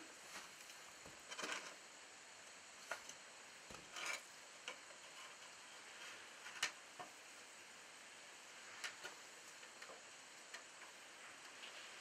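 A shovel scraping and tipping fuel into the firebox of a wood-fired steam boiler, with scattered short scrapes and sharp clicks over the faint hiss and crackle of the fire. A sharp click about six and a half seconds in is the loudest sound.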